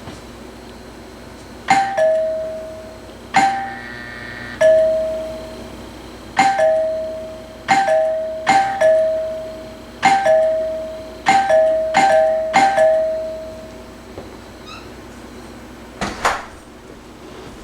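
Vintage wood-grain two-chime electric doorbell, probably from the 1970s, rung about nine times in a row: each press gives a higher ding followed by a lower, longer-ringing dong. Some rings come quickly and some have a pause of a second or more between the two notes. A few short knocks come near the end.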